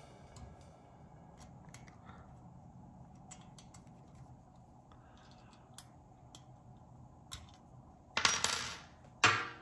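Light metallic clicks and taps as the stainless whip and the set-screw base of a Wilson 1000 antenna are handled. Near the end come two sharp metal clinks about a second apart, each ringing out briefly.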